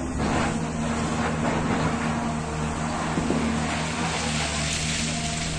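Diesel engine of an XCMG XE215CLL long-reach hydraulic excavator running steadily while digging.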